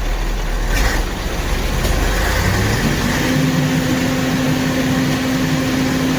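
Mercedes-Benz SK truck's diesel engine running, its speed raised about two and a half seconds in and held steady at the higher revs, as the alternator's charging is checked under load.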